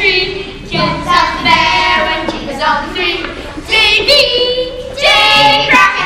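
A child singing a song into a microphone, with a few long held notes and sliding pitches.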